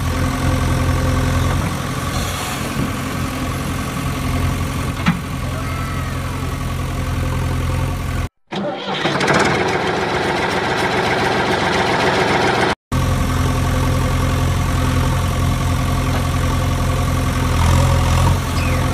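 Engine idling steadily, a dubbed sound effect, since the toy vehicles have no engines. About eight seconds in it is interrupted by a short drop-out, then by about four seconds of a noisier, hissing sound without the low hum, and by another drop-out before the idling returns.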